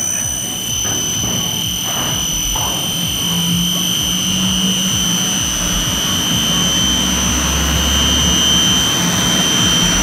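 Centrifugal water pumps driven by large electric motors, running steadily with a constant high whine over a low hum.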